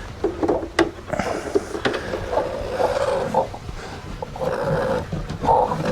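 Chickens calling in the coop: several drawn-out calls, with a few sharp knocks in between.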